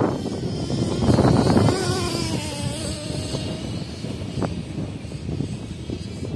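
FTX Carnage nitro RC truck's small two-stroke glow engine running at high revs as it drives, loudest about a second in, then its pitch slides down as the truck moves off.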